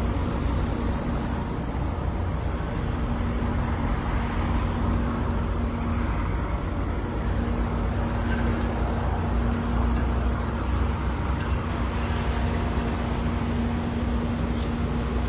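Road traffic on a multi-lane street: a pickup truck drives past close by at the start, then more cars pass, over a steady low rumble with a constant low hum.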